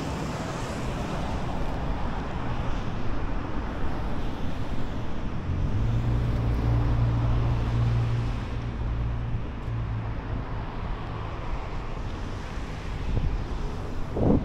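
City street traffic: cars and other vehicles passing on the road alongside, with wind rumbling on the microphone. A low engine hum from a passing vehicle swells for a few seconds about halfway through.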